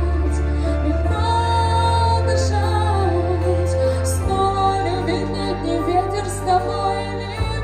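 Slow pop ballad: a female voice singing over a backing track with a low, held bass that changes note about four seconds in and again near the end.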